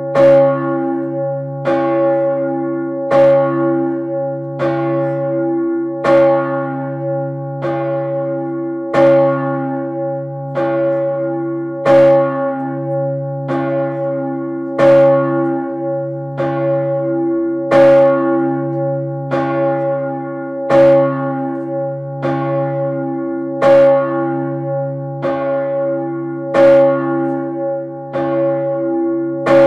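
Urban, the 3,200 kg church bell cast by Peter Gräf in 1588 and tuned about C-sharp, swinging and struck by its clapper about every second and a half. Each stroke rings on into the next over a steady deep hum, and every other stroke is louder.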